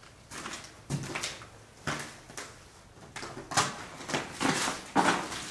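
Footsteps crunching over a floor strewn with fallen plaster and paint chips, a few scattered steps at first, then closer together and louder near the end.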